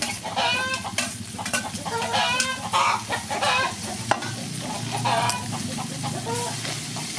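Metal spatula scraping and clicking against a wok as chicken gizzards, chili and tomato stir-fry over a steady sizzle, with chickens clucking in short repeated calls.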